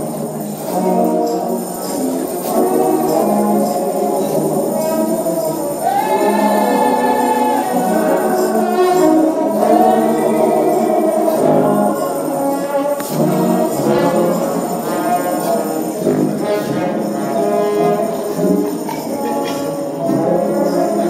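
Gospel music from a brass band, with a tambourine shaking along to the beat and sustained, wavering horn notes.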